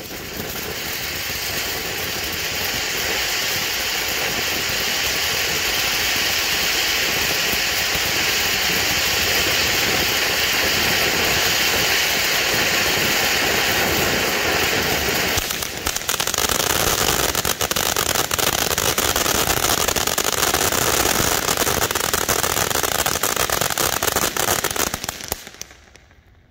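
Phantom Fireworks Iron Eagle ground fountain firework spraying sparks with a steady, loud hiss. About halfway through it dips briefly, then turns to a grainier crackling spray. Near the end it fades away as the fountain burns out.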